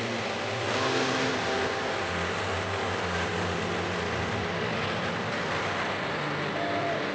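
Motor vehicle engine running while under way, its low pitch shifting up and down as the revs change, over steady road and wind noise.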